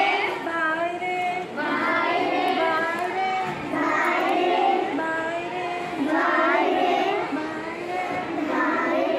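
A group of young children singing a nursery rhyme together in short, repeating sung phrases.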